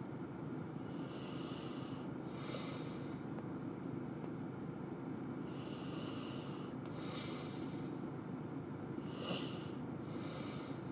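A person breathing through the nose close to the microphone, three slow in-and-out breaths about four seconds apart, over a steady low hum. A few faint clicks.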